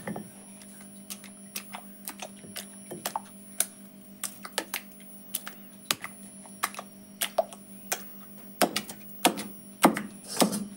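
Wooden pestle pounding raw chicken into a paste in a stone mortar: a run of uneven knocks, about two a second, coming faster and louder near the end.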